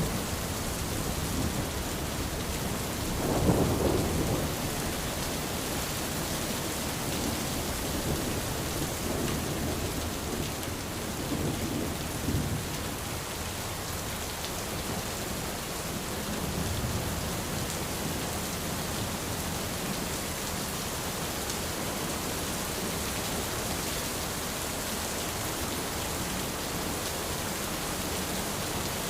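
Steady rain falling on an umbrella, with low rolls of thunder, the loudest a few seconds in and weaker ones around the middle.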